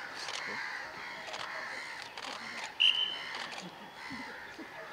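Open-air background of faint bird calls and scattered clicks, cut by one short, loud, high whistle blast about three seconds in.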